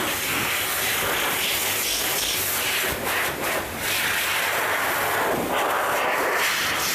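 Dog groomer's hose blow dryer blowing a steady, loud rush of air over a dog's coat, with a couple of brief dips about three seconds in as the nozzle moves.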